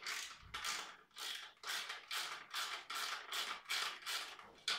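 A 10 mm socket on a ratchet handle is worked back and forth to undo a rear fender mounting nut. Each back-stroke gives a short burst of ratchet clicks, about two bursts a second, in an even rhythm.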